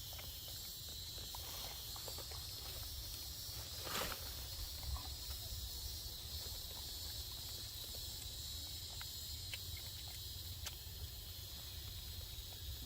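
Insects chirring steadily, with a low rumble underneath and scattered small clicks and rustles; one louder knock about four seconds in.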